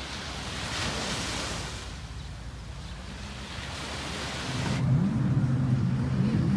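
Sea waves washing with wind noise. About two-thirds of the way through, the sound cuts abruptly to a deep, wavering low rumble that grows louder.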